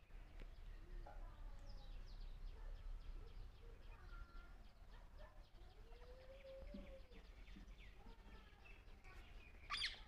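Faint, scattered chirps and calls of wild birds over a steady low rumble, including one longer call that rises and falls about two-thirds of the way through. Just before the end comes a brief, sharp scraping knock, the loudest sound.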